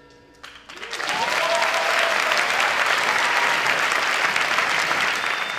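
Audience applauding, breaking out about half a second in as the last ringing notes of the marimbas fade away, and going on steadily.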